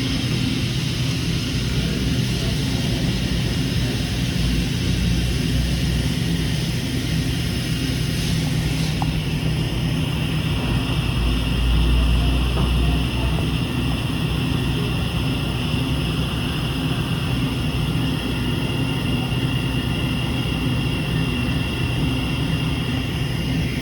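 Hurco CNC milling machine running: a steady machine hum with several steady high-pitched whines, and a swell of low rumble about halfway through.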